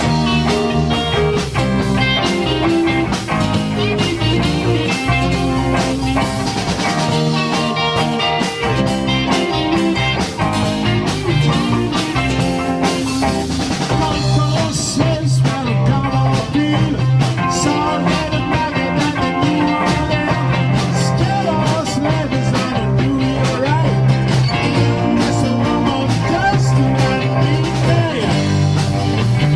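Rock music with electric guitar over a steady drum beat.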